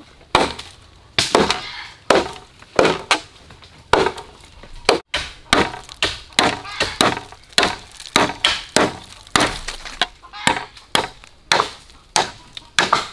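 Steady chopping: a blade striking down about two to three times a second, each stroke a sharp knock.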